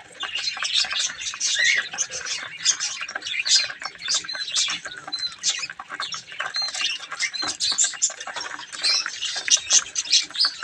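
A flock of budgerigars chattering: many short, overlapping chirps, squawks and warbles with no let-up.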